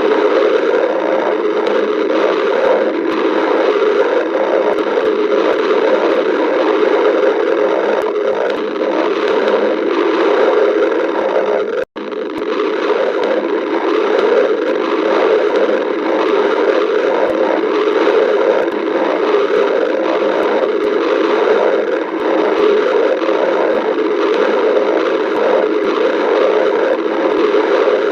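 Stomach growling, a dense continuous rumbling that drops out suddenly for a moment about twelve seconds in.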